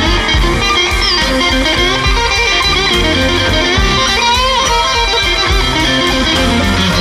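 Live blues band playing, led by an electric guitar solo on a Stratocaster with bent, wavering notes over bass and drums. The most pronounced bends come about four seconds in.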